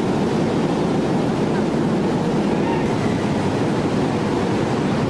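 Steady, loud rumble of heavy forge-shop machinery running, with no distinct hammer blows.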